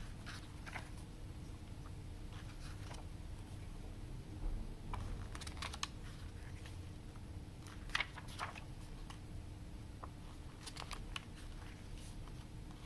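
Pages of a CD booklet being turned by hand: short paper flicks and rustles, a few at a time, the sharpest about eight seconds in, over a faint steady hum.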